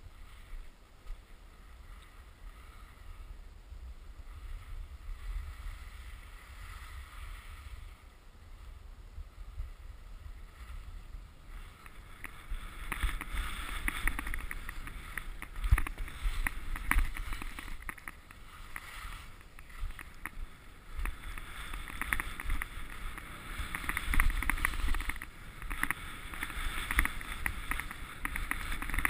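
Skis sliding and scraping over packed snow, with wind buffeting the microphone. The scraping grows louder and rougher about twelve seconds in.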